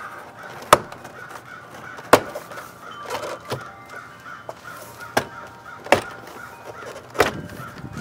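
Plastic retaining clips of a Cadillac CTS inner door panel snapping loose one after another as the panel is pried off the door: five sharp pops spread irregularly through the stretch.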